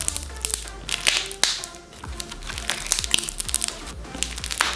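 Thick bingsu bead slime being squeezed and pressed by hand, its beads crackling in dense rapid clicks, over background music.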